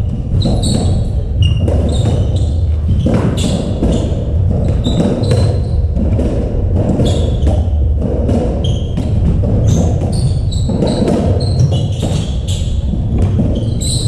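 Racketball rally on a squash court: the ball is struck by rackets and thuds off the walls and floor many times, with short high squeaks of shoes on the wooden floor and the hits echoing in the enclosed court.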